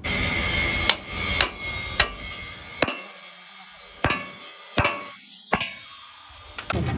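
Hammer blows on sheet steel: about seven separate strikes, irregularly spaced and each ringing briefly.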